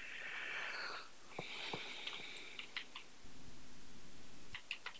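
Quiet breathing close to the microphone, two breaths in the first half lasting about a second each, with a few soft computer keyboard or mouse clicks.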